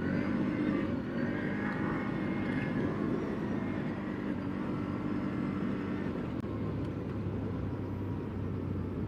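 CFMoto CForce 800 ATV's V-twin engine running while riding. Its note drops to a lower, steady drone about six seconds in.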